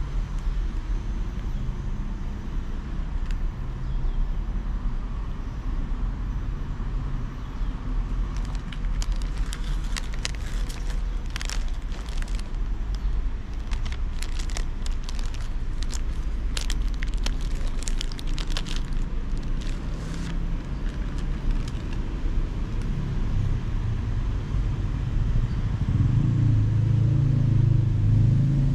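Clear plastic bread wrapper crinkling and crackling in the hands for several seconds in the middle, over a steady low rumble of road traffic. A motor vehicle's engine grows louder near the end.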